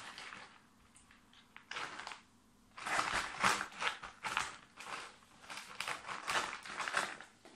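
Thin black plastic plant pot being squeezed and handled upside down, its walls crackling and creaking in bursts, as a plant is worked out of it. One short burst comes about two seconds in, then a run of crackling bursts until near the end.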